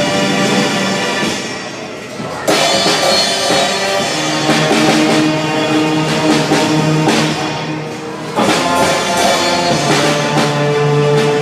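Recorded show music playing through the animatronic stage's speakers: a classical piece with a rock drum kit, held notes under it, and the full band coming in loudly about two and a half seconds in and again about eight and a half seconds in.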